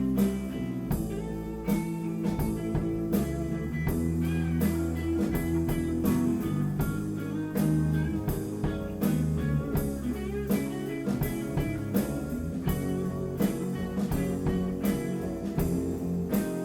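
Rock band playing an instrumental passage: guitar melody with bent notes over bass and a drum kit keeping a steady beat.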